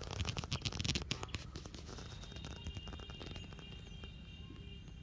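Grass and reeds rustling and crackling under bare feet and hands for about the first second and a half, a dense run of short crackly rustles. After that the rustling fades and faint, steady high-pitched calls sound in the background over a low rumble of wind on the microphone.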